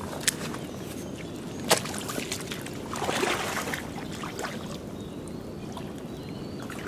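River water lapping and swishing around a wading angler's legs, with two sharp clicks in the first two seconds and a louder swish of water about three seconds in.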